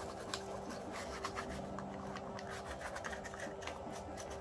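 A brush spreading grease over a plastic replica pistol body: soft, irregular scratchy strokes, several a second.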